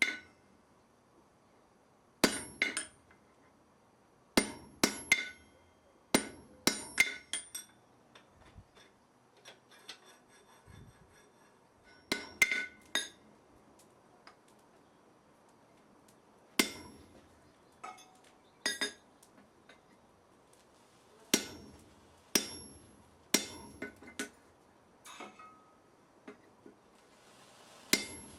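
Hand hammer striking iron on a steel anvil, with a bright ring after each blow. The blows come in short irregular groups of one to four, with pauses of a few seconds between them.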